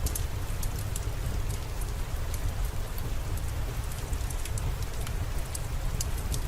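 Steady rain falling, with many scattered sharp ticks of drops over a constant low rumble.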